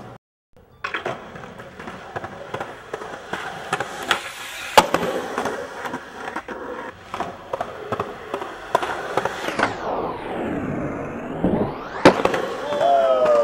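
Skateboard wheels rolling on concrete, with scattered clacks of the board. There is a sharp loud clack about five seconds in and another near the end as the skater pops a trick at the stair rail.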